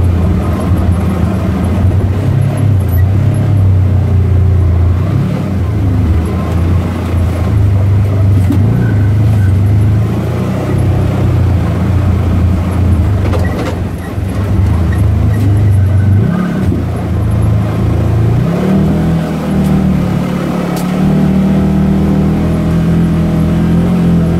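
Polaris General side-by-side UTV's engine running under load over dirt trails. It holds a fairly steady pitch, eases off briefly a little past halfway, then revs higher for the last third as the machine heads up a dirt hill.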